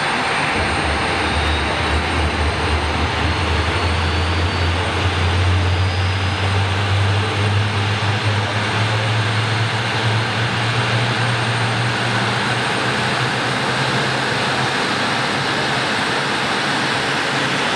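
Airliner jet engines running at idle thrust, a steady rush with a strong low hum that rises slightly in pitch partway through and a faint high turbine whine.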